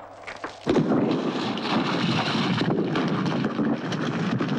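Rockfall on a mountainside: a sudden loud, dense noise of falling and tumbling rock starts just under a second in and keeps going, with many small cracks and knocks in it.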